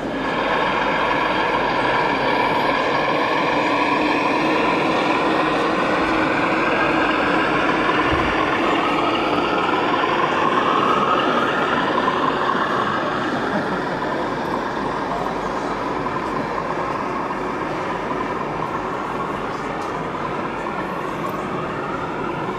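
O gauge model diesel railcar pulling out of the station and running away along the track: a steady mechanical drone whose pitch slowly rises and falls, easing off somewhat in the second half as it draws away.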